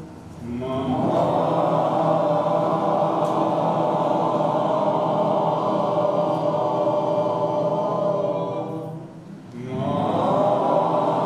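Voices chanting together in a long held tone for about eight seconds, breaking off briefly for breath, then starting the next held chant.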